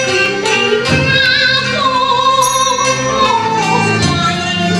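Cantonese opera singing over its instrumental ensemble, the voice drawing out one long wavering note through the middle of the phrase.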